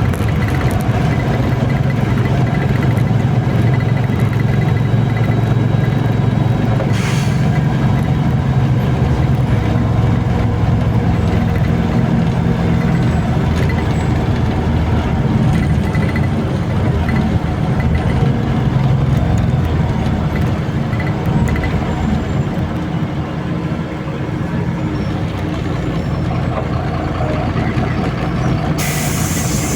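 MAZ-203 city bus running, heard from inside the cabin: a steady low engine drone throughout. A short hiss comes about seven seconds in, and a loud hiss starts just before the end.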